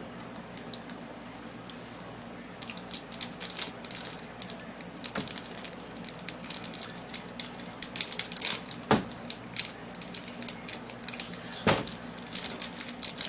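Plastic snack wrapper crinkling and crackling as it is handled and opened, in irregular bursts, with two louder sharp knocks in the second half.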